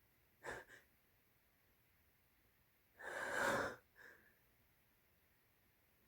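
A person's sneeze build-up that does not release: two quick sharp breaths about half a second in, then a longer, louder gasping breath about three seconds in that swells to its peak, and one short breath after it.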